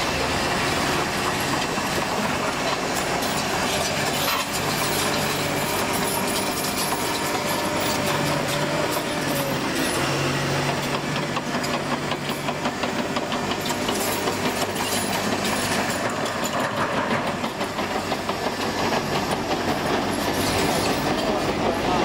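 Komatsu D61PXi-23 crawler bulldozer working gravel: its diesel engine runs steadily under load while its steel tracks clank and rattle. The track clatter thickens partway through as the dozer passes close by.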